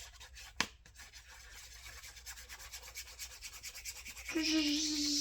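Paper being rubbed in quick, fine strokes as a sheet is glued down and pressed onto a paper pocket, with a sharp click about half a second in. About four seconds in, a louder steady pitched tone with hiss sets in and holds to the end.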